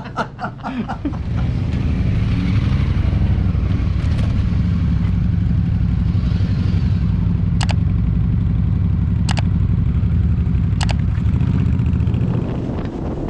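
Motorcycle engine running steadily with a low rumble. It comes in about a second in and drops off near the end. Three brief sharp ticks, about a second and a half apart, sound over it in the second half.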